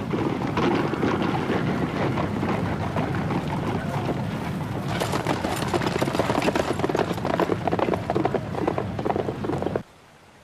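Dense clatter of many galloping horses' hooves, a cavalry force on the move. It grows louder about halfway through and cuts off suddenly near the end.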